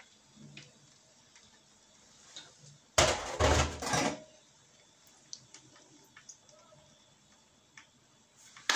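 A short clatter of dishes about three seconds in, lasting about a second: the mixing bowl being set down on the kitchen counter. Apart from a small click near the end, there is only faint background noise.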